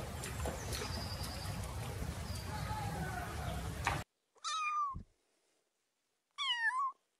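A kitten meowing twice, two short pitched mews about two seconds apart. Before them, a steady hiss of background noise cuts off suddenly about four seconds in.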